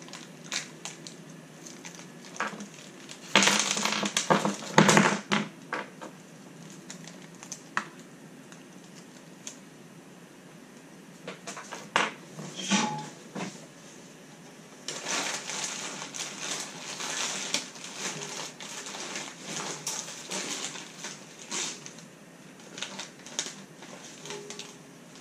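Plastic kit parts bags crinkling and small parts clicking as they are handled on a desk. There are two bouts of crinkling, one about three to five seconds in and a longer one from about fifteen to twenty-two seconds, with scattered single clicks between.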